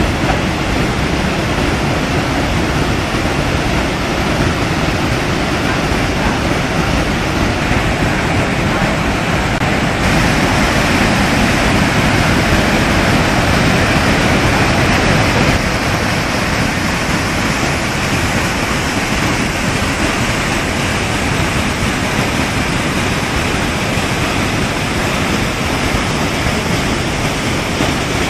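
Fast mountain-river rapids: whitewater rushing over boulders, a steady, loud rush of water that grows a little louder for a few seconds in the middle.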